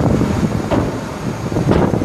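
Wind buffeting the microphone in uneven gusts, over the low rumble of the dump truck's 7.8-litre inline-six diesel engine running with the bed raised.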